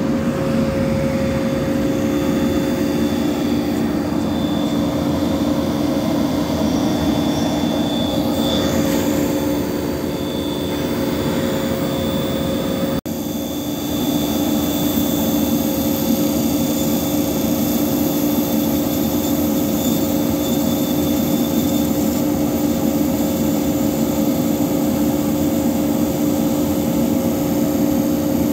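Repaired 40-horsepower DC motor test-running on the bench, a steady hum with a constant whine. The sound cuts out for an instant about halfway through.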